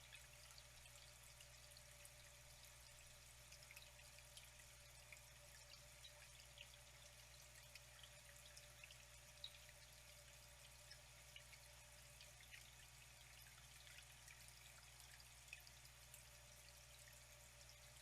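Faint, steady trickle of flowing water, with small drips plinking here and there.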